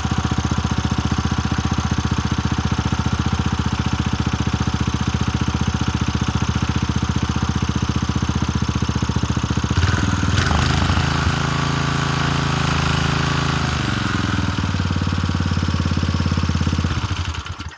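Small Briggs & Stratton single-cylinder engine on an old MTD lawn edger running steadily on fresh fuel after years of sitting. About ten seconds in its note changes and gets louder, and near the end it is shut off and dies away.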